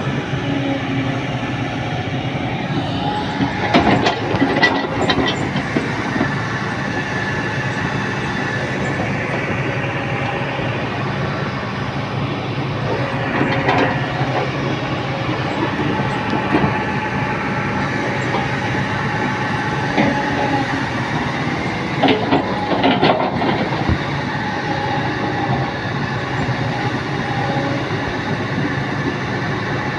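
Excavator's diesel engine running steadily under load, with bursts of knocking and clanking a few times as the machine works.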